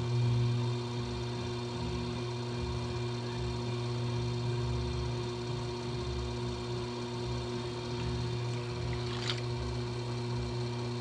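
Electric potter's wheel motor running with a steady low hum while a large clay form turns on it. A short sharp tick about nine seconds in.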